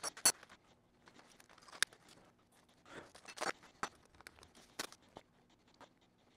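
Quiet hand handling at a plastic seed tray: a scattered series of light clicks and taps with faint rustling, as toothpick flag labels are pushed into rockwool cubes.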